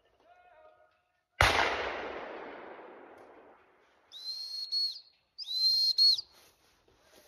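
A single shotgun shot with a long echoing tail, followed a few seconds later by two steady blasts on a plastic gundog whistle, the second longer and louder.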